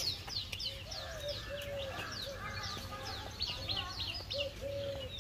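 Many small birds chirping in a dense chorus of quick, downward-sliding high chirps, with a repeated short low note underneath.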